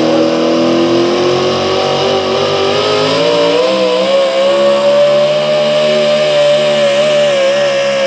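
4WD pulling truck's engine screaming at high revs under full load as it drags the weight sled, its pitch climbing over the first few seconds and then holding high and steady with slight wavering.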